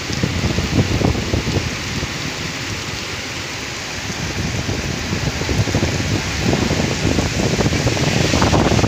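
Heavy rain falling steadily in a storm, with gusts of wind rumbling on the microphone that grow stronger in the last couple of seconds.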